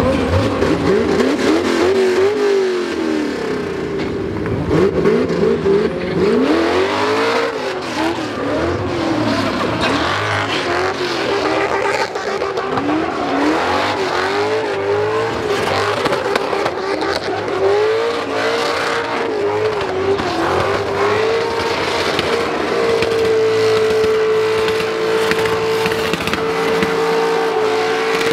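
Two drift cars, a Corvette and a red coupe, in a tandem drift run: engines revving up and down as the drivers work the throttle, with tyres screeching. Near the end one engine holds a steady high pitch.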